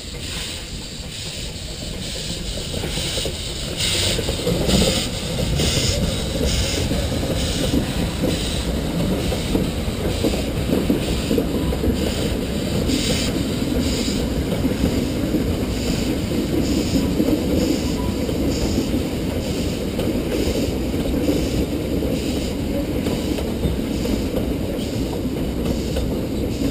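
Narrow-gauge 2-6-2T steam locomotive working a train across a timber trestle bridge: its exhaust beats come at an even rhythm, growing louder over the first few seconds as it approaches. They are joined by a steady low rumble of the carriages rolling over the bridge.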